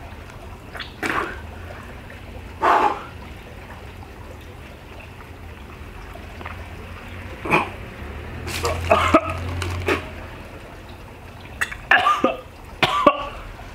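A person coughing, clearing the throat and breathing out hard in short bursts a few seconds apart, with a longer drawn-out one about halfway through. These are reactions to the burn of a very hot chili pepper in the mouth and throat.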